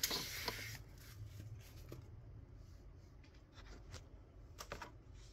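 Tissue wrapping paper rustling briefly as it is pulled out of the box, followed by a few light clicks and knocks of plastic parts being handled.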